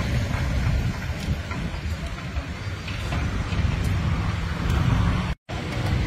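Steady low rumble of heavy construction machinery running on a building site, cutting out for a split second near the end.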